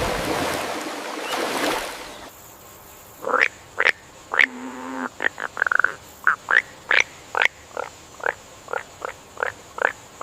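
Frogs calling: a run of about fifteen short, sharp croaks at an uneven pace. They start after a loud rushing noise fades out in the first two seconds.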